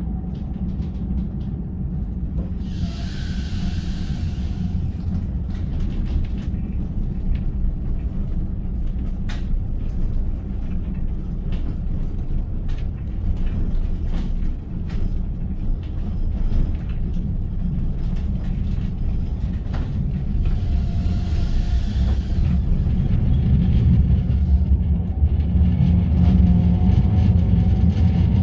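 Tram running, heard from inside the passenger car: a steady low rumble of wheels on rail with faint clicks, two short spells of hiss, and the running noise growing louder in the last few seconds as a faint whine rises.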